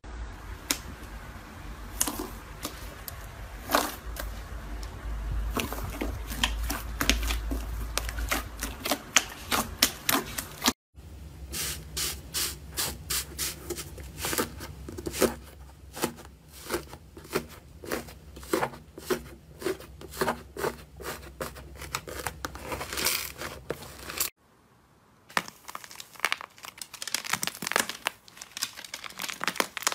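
Slime squeezed and pressed by hand close to the microphone: sticky pops and clicks, then the crackling of the dried crust of a rainbow iceberg slime breaking under the fingertips, then more crackling as a cracked blue slime crust is squeezed.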